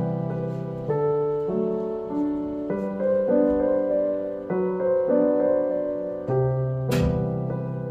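Background piano music, gentle and slow, with notes and chords changing about once a second. A single sharp click sounds about seven seconds in.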